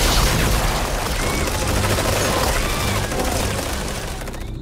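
Electric crackling of a TV lightning effect: a dense, continuous crackle with short zaps, fading away near the end.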